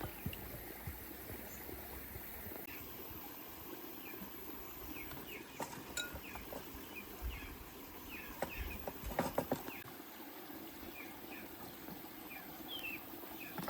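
Rural outdoor ambience: a steady hiss with many short high chirps, and a few sharp knocks near the middle.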